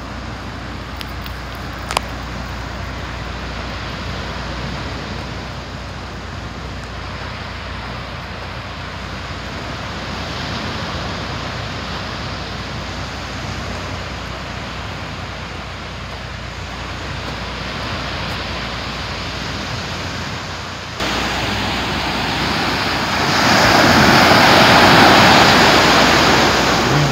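Sea surf on a sandy beach: a steady wash of breaking waves, rising to a louder wash near the end as waves break close by. A single sharp click about two seconds in.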